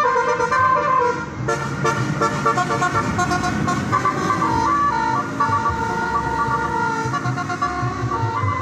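Tour bus telolet horn playing a tune of stepped notes: quick short notes at first, a long held note in the middle, then more short notes near the end, over a low engine rumble.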